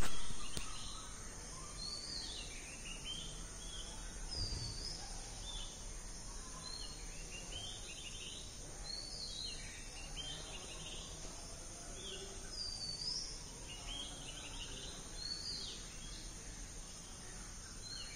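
Outdoor ambience: birds giving short, sweeping chirps every second or two over a steady, high-pitched insect drone. A loud sound right at the start fades out within about a second.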